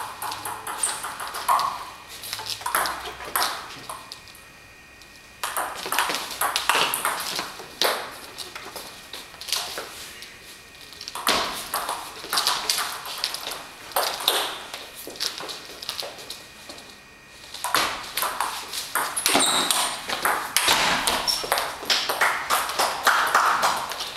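Table tennis rallies: the ball clicking back and forth off the paddles and the table in quick succession. The clicking comes in about four runs, with short pauses between points.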